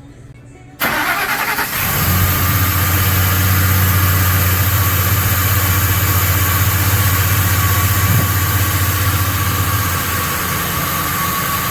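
Ford F-150 4.6-litre V8 starting: about a second of cranking, then it catches and settles into a steady idle, with the new fuel rail pressure sensor fitted. The idle eases down slightly near the end.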